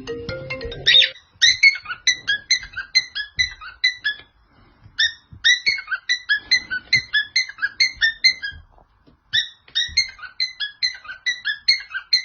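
Cockatiel whistling its imitation of the iPhone alarm tone: quick, evenly spaced high chirps, about three a second, in three runs separated by short pauses.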